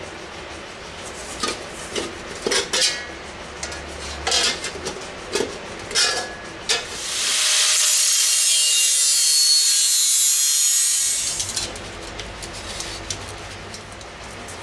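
Short metallic clinks and knocks as a steel-plate helmet shell is handled on a workbench. Then, about seven seconds in, an angle grinder grinds the edge of the 1 mm steel plate for about three and a half seconds, a loud, high hiss that is the loudest thing heard. A few lighter clicks follow.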